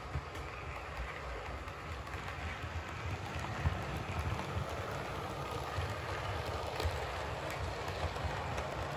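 Heljan model Class 25 diesel locomotive and its coaches running along the model railway track toward the camera: a steady low rumble of motor and wheels with light clicks over the rail joints, growing louder about three seconds in as the train nears.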